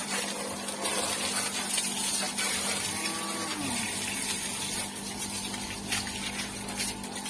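Water from a hose spraying and splashing onto a parked motorcycle, with a steady low hum underneath.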